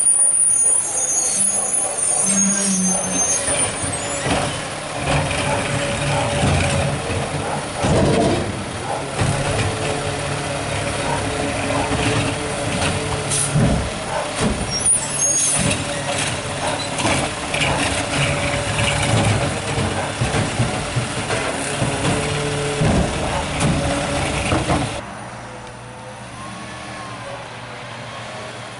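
Peterbilt 520 garbage truck running at low speed, its engine steady, with loud air brake hisses right at the start and again about halfway through. The sound drops off abruptly about 25 seconds in.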